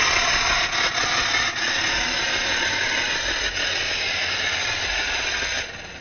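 Branson compact tractor's diesel engine running with a loud, steady hiss over a low rumble, choked by what the owner calls a definitely plugged DPF filter. The hiss drops away abruptly near the end.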